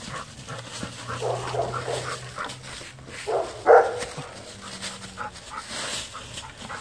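A dog making short whines and yelps, the loudest a little over halfway through, while dry leaves rustle under the large branch it is dragging.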